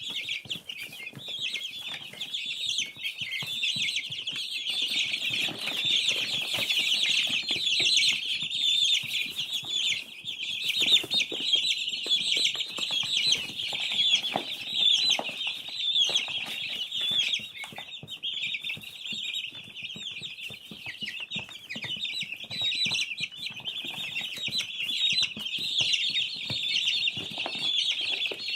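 A flock of chickens calling over one another: a dense, continuous chatter of many short, high calls that never lets up.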